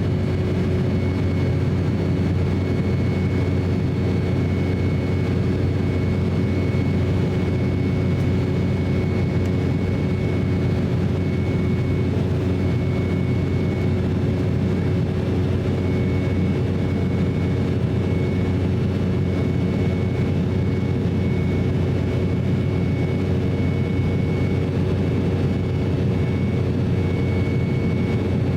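Steady cabin noise inside an Embraer E190 jet airliner: a constant low rumble of the twin turbofan engines and airflow, with a steady hum and a thin high whine that drops in and out.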